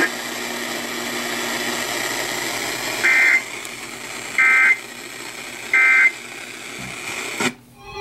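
Weather alert radio sounding the three short data bursts of the EAS/SAME end-of-message code over steady radio hiss; each is a fraction of a second of buzzy warble, about a second and a half apart, and they signal that the alert broadcast is over. The hiss cuts off near the end.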